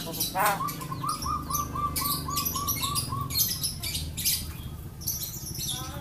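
Javan myna (jalak kebo) calling: a quick run of about a dozen short, evenly repeated notes, about four a second, with sharp high chirps scattered through the call.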